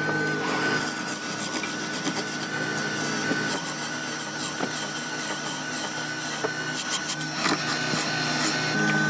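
Wood being worked with tools, with rasping and rubbing strokes and occasional sharp clicks and knocks over a steady machine hum.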